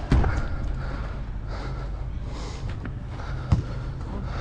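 A footballer breathing hard during play, with a steady low rumble and sharp knocks at the start and about three and a half seconds in.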